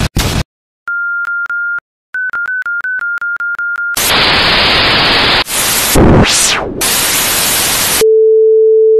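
A string of electronic sound effects. A high beep breaks off twice, then a quick run of short beeps follows. About four seconds in comes loud static hiss, with a tone sweeping down and back up through it, and a steady lower tone takes over near the end.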